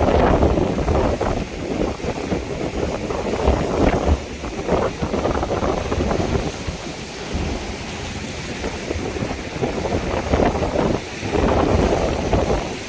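Sea surf breaking on the shore in irregular surges, with wind buffeting the microphone and adding a low rumble.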